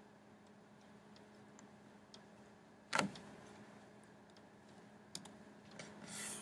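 Quiet room with scattered faint clicks and ticks, and one sharper click about three seconds in.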